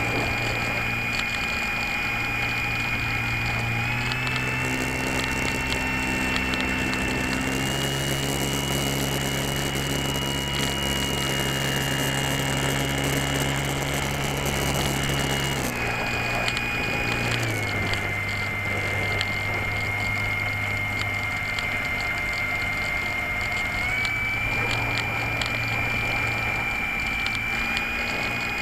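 Electric motor and propeller of a GWS Slow Stick model plane heard from on board in flight: a steady high whine over a low buzz. The pitch steps up twice in the first eight seconds, drops in two steps a little past the middle, and rises again near the end as the throttle is changed.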